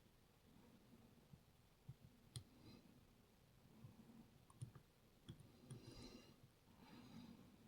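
Faint clicking and scraping of a lock pick and tension wrench working the pin stacks of a Rav Bariach KeylocX cylinder, with a few sharper clicks about two and a half and four and a half seconds in.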